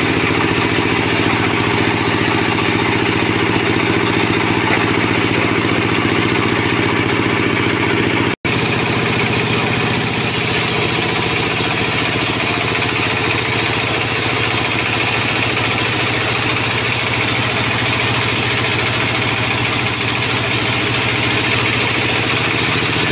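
Band sawmill running steadily, its band-saw blade cutting through a sonokeling (Indian rosewood) log: a loud, even machine hum over a noisy haze. The sound breaks off for a split second about eight seconds in and resumes with a slightly different tone.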